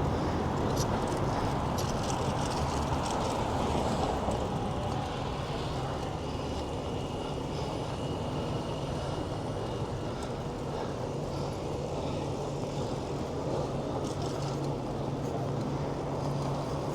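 Steady rush of city traffic and road noise with a low hum, heard from a moving bicycle.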